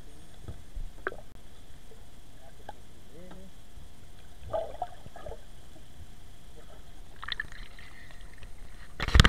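Muffled water sound heard through a camera held under the river surface, with faint knocks and sloshing as a hand handles a fish underwater. The camera then comes out into the air, and a sudden loud thump near the end.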